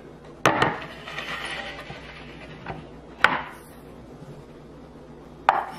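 A wooden cutting board set down on a granite countertop with a sharp clack, then slid across the stone with a scraping rub. Two more knocks follow, about three seconds in and near the end.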